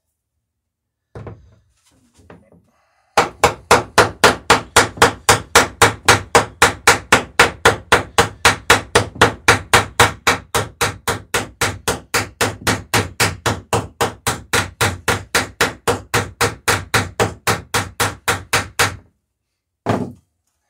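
Hammer riveting the lapped planking of a wooden dory: a steady run of quick, even strikes, about four a second, lasting some sixteen seconds. A single knock comes just before the run, and another near the end.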